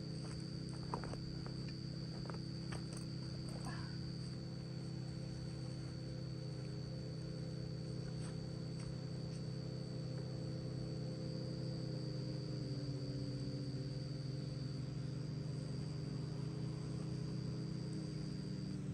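Insects singing in one steady high tone over a steady low hum, with a few soft clicks in the first few seconds.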